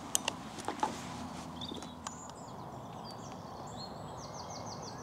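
Small birds chirping over the steady rumble of distant road traffic, with a few sharp clicks in the first second and one more about two seconds in. Near the end a bird gives a quick run of five repeated notes.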